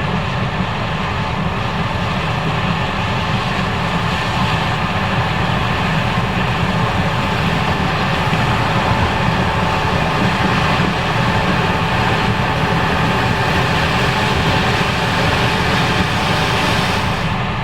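Case IH 5140 Axial-Flow combine running steadily while harvesting corn: a loud, even drone of engine and threshing machinery with several constant whining tones.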